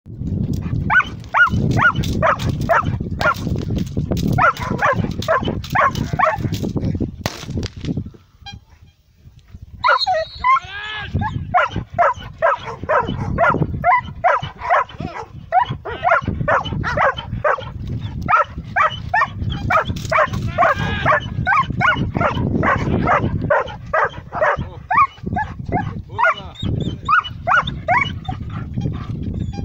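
German Shepherd barking rapidly and continuously, the aggressive barking of a dog being worked up in protection training, with a short pause about a third of the way in.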